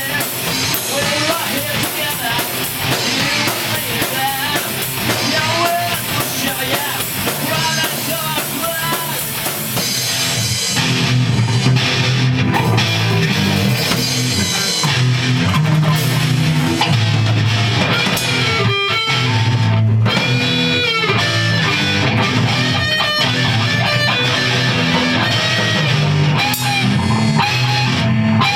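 Punk rock band playing an instrumental passage on electric guitars, bass and drum kit. About ten seconds in it moves to heavier low chords, with a lead guitar bending notes over them.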